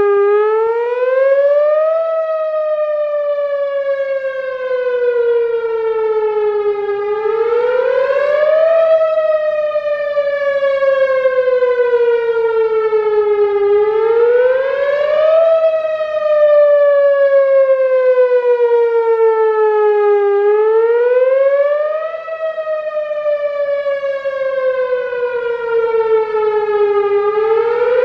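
Whelen Vortex R4 rotating electronic outdoor warning siren sounding its wail tone during a scheduled test. The loud tone rises over about two seconds, then slowly falls over about five, repeating about every seven seconds.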